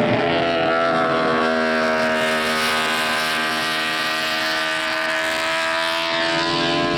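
Honda six-cylinder four-stroke GP racing motorcycle engine running with a steady, many-toned note. Its pitch sags slightly in the middle and rises again near the end.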